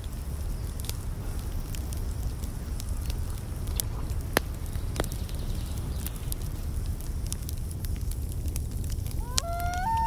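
Wood fire crackling in a small metal twig stove: irregular sharp pops over a low steady rumble. Near the end a wailing tone comes in, sliding and stepping in pitch.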